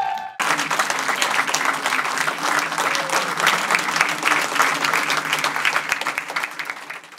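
Audience applauding: dense, steady clapping that starts abruptly about half a second in, right after a sung note cuts off.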